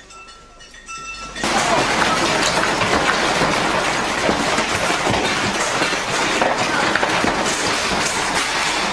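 Loud continuous rattling and rumbling of a building shaking in an earthquake, picked up by a handheld phone and full of small irregular clatters. It starts suddenly about a second and a half in, after faint background music.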